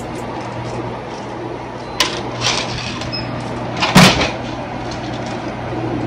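Steady background hum of a shop interior with two sharp knocks, about two and four seconds in, the second the loudest.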